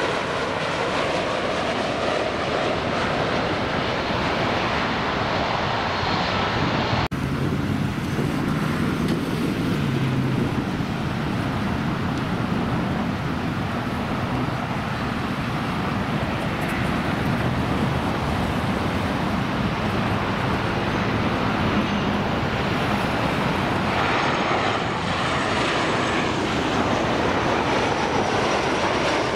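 Jet airliners (Boeing 737s) passing low on final approach: a steady, continuous turbofan engine noise, broken by an abrupt cut about seven seconds in.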